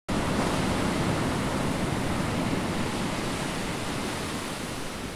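Small waves breaking and washing up on a sandy beach: a steady rush of surf that eases off slightly toward the end.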